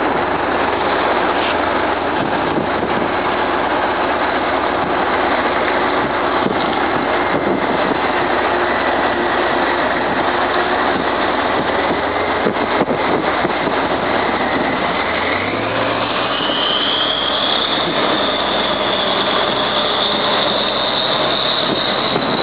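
MAZ-537 military tractor's V12 diesel running as the heavy truck drives through shallow floodwater. About two-thirds of the way in, the engine note climbs and a high whine rises in pitch.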